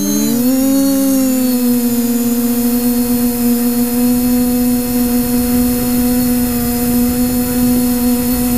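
Multirotor's brushless motors and propellers, driven by SimonK-flashed ESCs, humming in flight as heard from the onboard camera. The pitch dips and recovers about a second in, then holds steady over a rush of prop wash.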